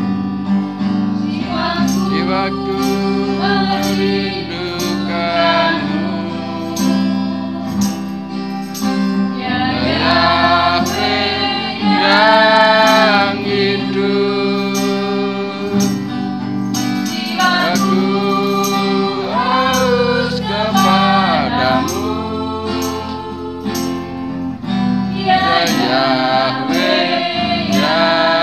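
Live worship song: a woman singing into a microphone, with acoustic guitar accompaniment and a steady ticking beat.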